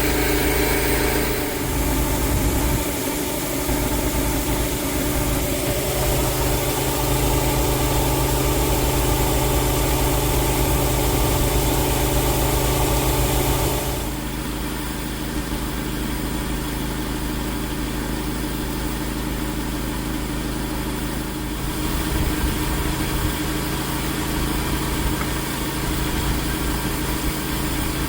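Farm tractor engine running steadily. Its hum shifts and drops slightly in level about halfway through, then rises a little again several seconds later.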